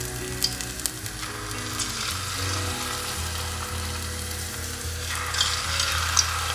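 Thin potato slices frying in hot oil: a steady sizzle with scattered sharp crackles, growing louder with more pops about five seconds in.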